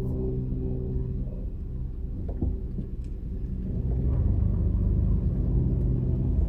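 Car engine hum and road rumble while driving, steady and low, growing louder about four seconds in.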